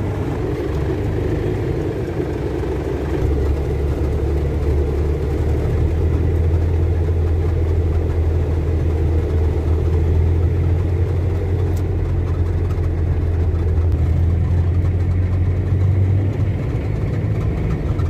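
Moving car's engine and road noise heard inside the cabin: a steady low drone that grows a little louder about three seconds in.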